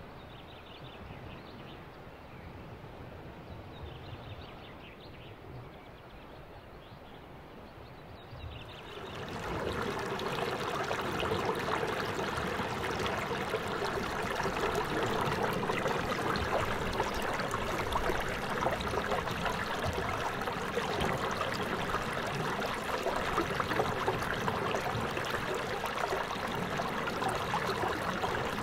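A small stream of water splashing and trickling over rocks into a pool, a steady babble that comes in suddenly about nine seconds in, after a stretch of faint outdoor quiet.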